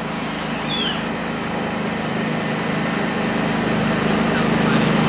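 Golf cart's small engine running steadily, growing gradually louder as the cart approaches.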